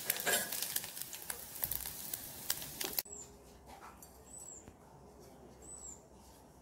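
Sliced onions frying in hot oil in an aluminium pot: a steady sizzle with crackling and a few sharp clicks of a metal slotted spoon. It cuts off abruptly about three seconds in, leaving quiet with faint short high chirps about once a second.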